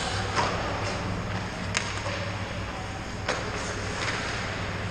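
Ice hockey play in an indoor rink: skates scraping the ice and about four sharp clacks of sticks and puck, over a steady low hum.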